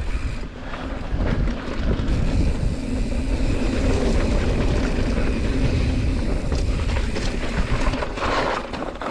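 Wind rushing over the microphone, with mountain bike tyres rumbling over a dirt trail on a descent.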